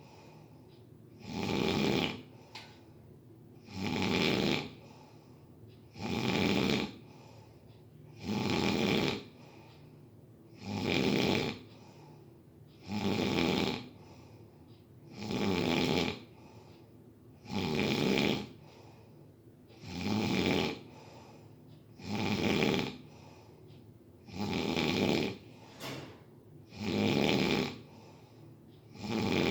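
Steady rhythmic snoring, one rough snore roughly every two seconds with quiet breathing gaps between.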